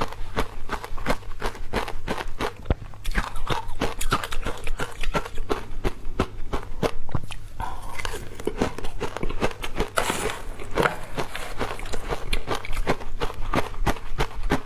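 Ice dusted with matcha powder being bitten and chewed close to the microphone: a continuous run of crisp crunches, several a second.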